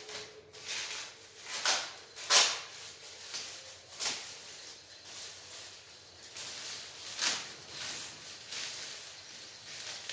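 Plastic wrapping crinkling and tearing as it is pulled and cut off a packed case, in irregular rustles with a few louder rips, the loudest about two and a half seconds in.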